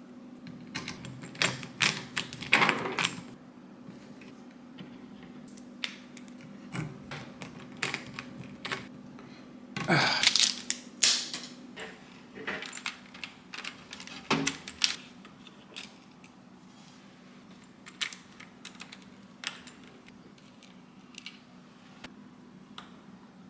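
Irregular clicks, taps and clinks of small metal screws, washers and bracket parts being handled and fitted inside a PC case, busiest about two and a half seconds in and again around ten to eleven seconds in, over a faint steady hum.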